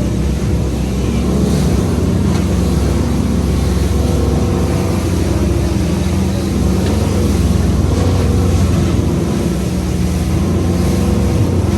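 A boat engine running steadily under way, a loud constant hum over a steady rushing noise.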